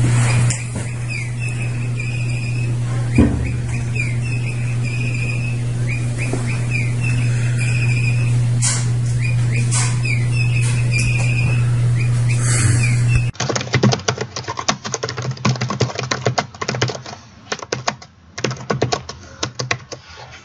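Short repeated bird chirps from a puppy's bird toy over a steady low hum. About two-thirds of the way in, the sound changes abruptly to a rapid, irregular run of clicks and rustles.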